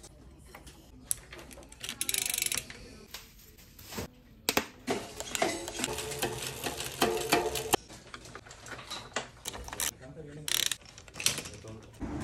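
Bicycle workshop sounds: the clicking of a rear hub freewheel ratchet as the wheel and cassette spin in the stand, with mechanical clicks and handling noises. Indistinct voices come and go.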